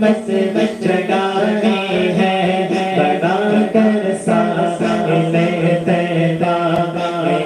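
A man singing an unaccompanied devotional kalam into a microphone, solo voice with no instruments, in long melodic held notes.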